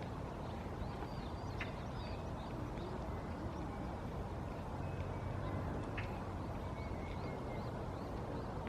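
Small songbirds giving scattered short, high chirps and thin twittering notes, with a few brief held whistles, over a steady low background rumble.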